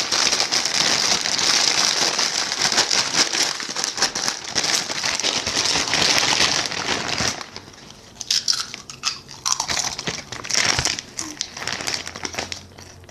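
Hand rummaging in a crinkly chip bag, the packet crackling continuously for about seven seconds, then in shorter, sparser bursts that die down near the end.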